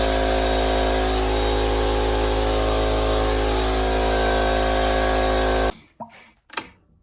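Suzuki RM-Z250's single-cylinder four-stroke engine running at a steady speed, then cutting off abruptly about five and a half seconds in, followed by a few light clicks.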